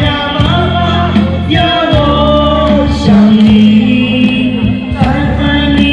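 Open-air street karaoke: a singer's amplified voice holding long notes over a backing track from a portable loudspeaker.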